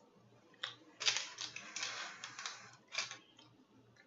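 Close-up eating and food-handling sounds: a cluster of rapid wet clicks and crackles for about two seconds, then one sharper burst about three seconds in.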